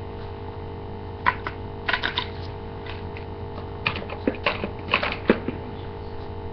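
Small hard plastic toy pieces, doll-kitchen play food, being handled and set down: irregular sharp clicks and taps in small clusters, over a steady hum.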